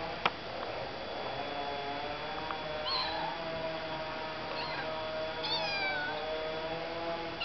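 Ginger kitten meowing over and over in long, drawn-out cries, with a few shorter, higher cries in between. A single sharp click just after the start.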